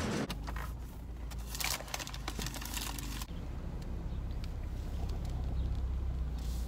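A car running, heard from inside the cabin as a steady low rumble. Rustling and a few clicks come over it in the first three seconds.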